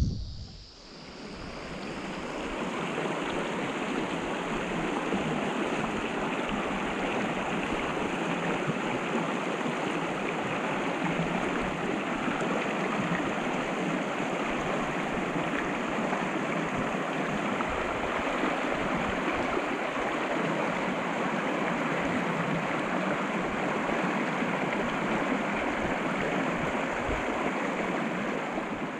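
Shallow river running over rocks in small rapids: a steady rush of water that comes in about a second in and holds even.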